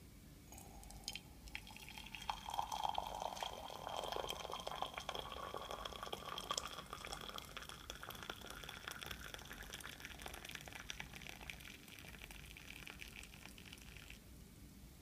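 Hot water running in a thin stream from a machine's spout into a ceramic mug, the pitch rising steadily as the mug fills. The stream stops about a second before the end.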